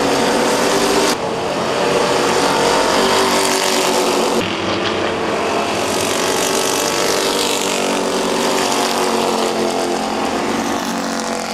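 Several stock-car engines racing around an oval, their pitch rising and falling as the cars accelerate and lift. The sound changes abruptly twice, about a second in and about four seconds in.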